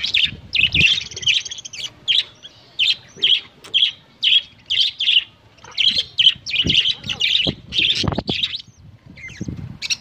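Budgerigar chicks cheeping in the nest while the hen feeds them: short, high chirps repeating about twice a second without a break, with a few soft low knocks in the second half.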